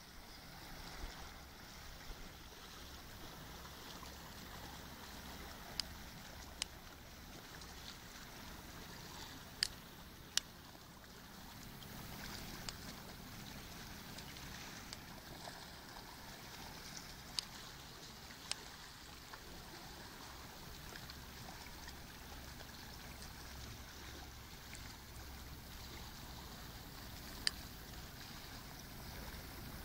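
Calm sea water lapping and gurgling against shoreline rocks, a steady low wash with occasional sharp clicks.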